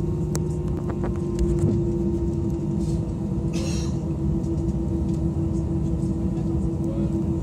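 Airbus A320 cabin noise while the airliner taxis: a steady low rumble under a constant hum, with a few light knocks and rattles in the first two seconds and a short hiss about three and a half seconds in.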